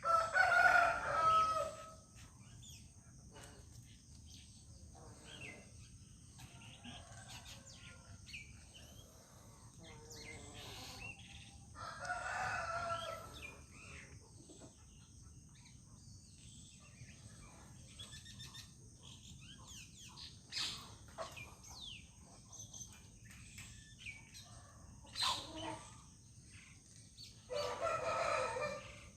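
A rooster crowing three times, about twelve seconds apart, each crow lasting roughly two seconds. Small birds chirp between the crows.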